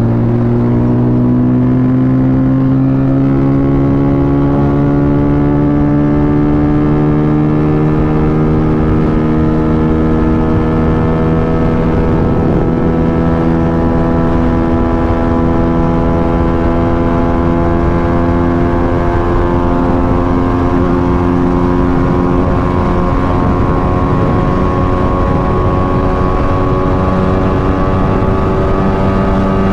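Motorcycle engine running under load while riding, its pitch climbing slowly and steadily as the bike gains speed, with a low wind and road rumble under it.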